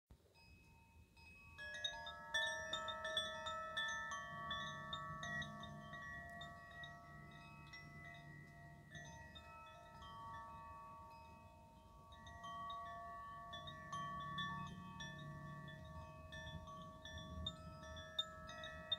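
Hand-rung wind chime: its metal rods clink and ring in many overlapping, long-held notes. The chime starts about a second and a half in, dies down, and is set ringing again partway through.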